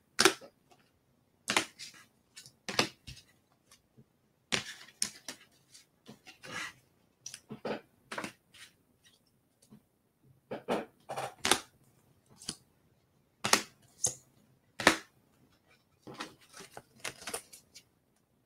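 Cellophane wrapper of a cello pack of baseball cards crinkling and the cards being handled: scattered short crackles, clicks and taps with brief silent gaps between them.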